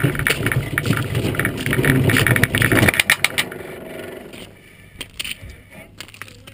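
Iceboat runners running over lake ice with a loud rumble and rapid rattle, which fades out about three seconds in as the boat coasts to a stop. A few faint clicks follow.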